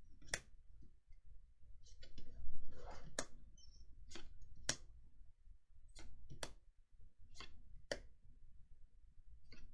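Magic: The Gathering trading cards handled one by one from a freshly opened booster pack: a string of sharp card snaps, roughly one every second, with a soft rustle of cards in between.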